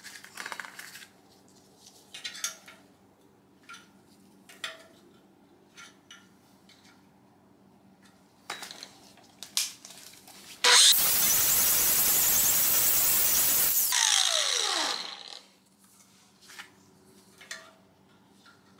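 Angle grinder cleaning up the cut edge of an exhaust pipe: after some light handling clicks and taps, about eleven seconds in it grinds on the metal for about three seconds, then spins down with a falling whine.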